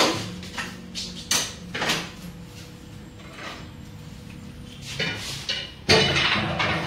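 Hard objects being shifted and knocked about in a small room: several separate knocks and scraping clatters, the longest and loudest near the end.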